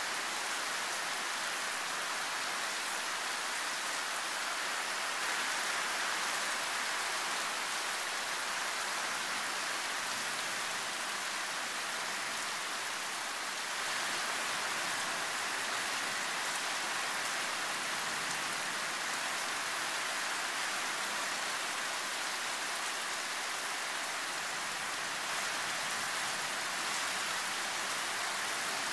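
Tropical thunderstorm rain pouring down in a loud, steady hiss, with no thunder standing out above it.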